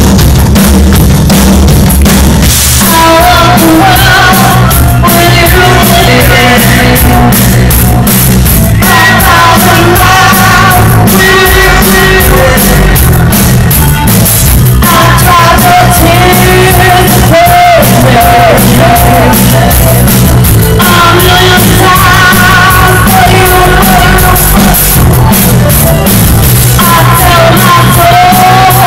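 Live rock band playing very loud: drum kit, bass and electric guitar, with a woman singing lead into a microphone. The singing comes in about two and a half seconds in and pauses briefly a few times between lines.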